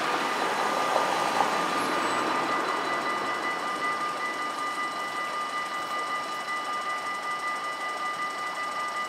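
Warning bells of an automatic half-barrier (AHOB) railway level crossing, ringing steadily at one fixed pitch while the crossing is closed.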